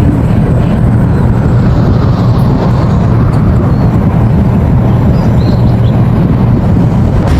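Excavator's diesel engine running steadily with a low, heavy drone.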